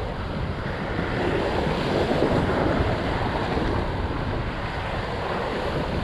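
Ocean swell washing and surging over coastal rocks, with wind buffeting the microphone. The wash builds to a louder surge about two seconds in.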